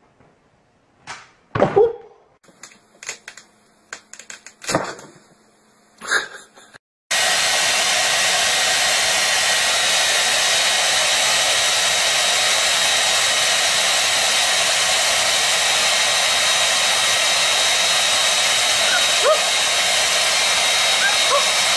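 A few scattered knocks and brief thumps, then about seven seconds in a handheld hair dryer starts abruptly and blows steadily: a rush of air with a thin, steady high whine over it.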